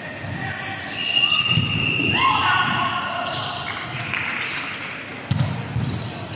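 Indoor volleyball play in a large hall: thuds of the ball being struck, shoes squeaking on the court floor and players calling out.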